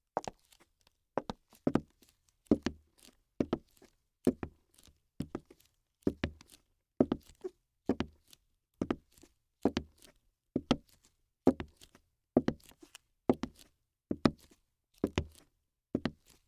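A steady series of short thuds, about one a second, each made of two quick knocks close together.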